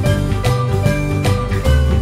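Background music with a steady beat, sustained bass notes and a higher melody of held tones.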